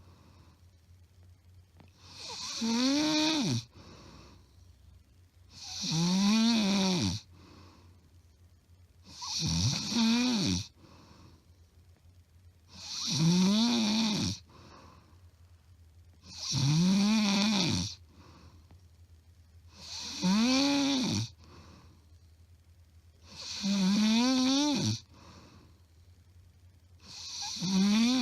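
A woman snoring loudly in her sleep, recorded close up: about eight snores in a steady rhythm, one every three and a half seconds, each a pitched rasp that rises and then falls, with quiet gaps between. The breathing keeps an even pace without long pauses, which the uploader takes to be plain loud snoring rather than sleep apnea.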